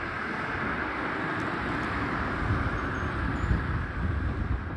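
JR Kyushu 819 series battery electric train pulling away down the line, its running noise heard at a distance as a steady rush, with wind gusting on the microphone.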